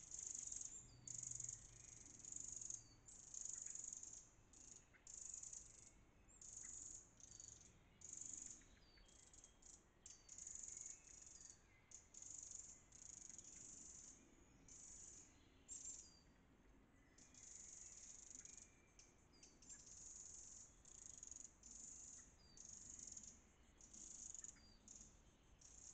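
Eurasian wren giving its alarm call: faint, high, dry churring rattles repeated again and again with short irregular pauses, with a few short sharp notes between them. It is the alarm of a wren mobbing a predator near its hidden nest.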